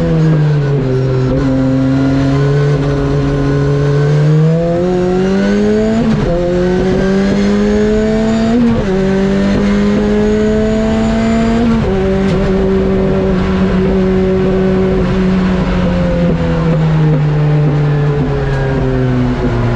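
Ford Escort Cosworth's turbocharged four-cylinder engine being driven hard: the engine note climbs steadily, dips briefly twice, holds high, then falls away steadily from about twelve seconds in as the car slows.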